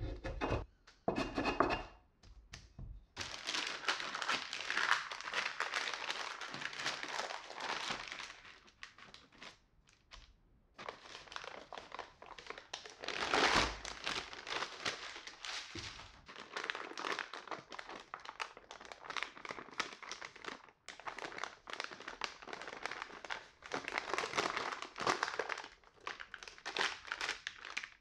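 Parchment baking paper crinkling and rustling in several stretches with short pauses as hands handle sheets of rolled cookie dough on it. A few short taps come at the start.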